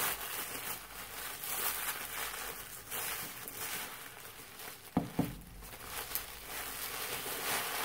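Paper wrapping crinkling and rustling as items are unwrapped by hand, with two quick knocks about five seconds in.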